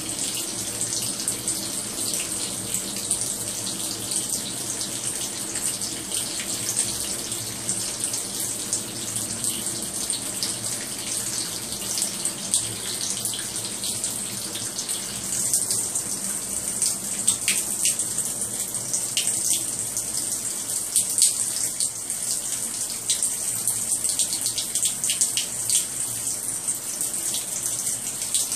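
A thin stream of running water splashing onto a turtle's shell and a wet tiled floor: a steady spattering hiss that grows louder and more uneven about halfway through.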